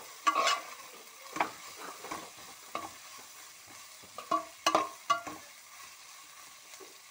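A spoon scraping and stirring sliced onions, green chillies and crushed ginger and garlic frying in oil in a granite-coated pan. The stirring comes in irregular strokes over a faint sizzle, then stops about five seconds in, leaving only the sizzle. The onions are being sautéed until soft, the first stage of the curry gravy.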